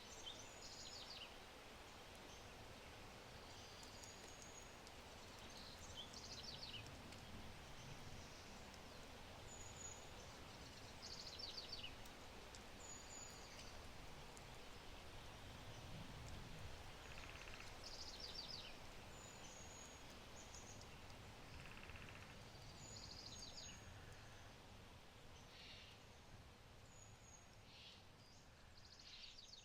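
Faint forest birdsong: short high chirps and quick trills, repeated every second or two, over a soft steady hiss from a low-burning oak fire.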